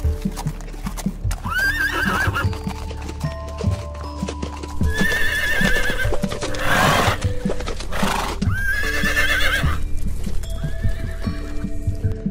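Zebras calling: four high, wavering barking calls, each about a second long, with a short noisy burst between the second and third. Background music plays throughout.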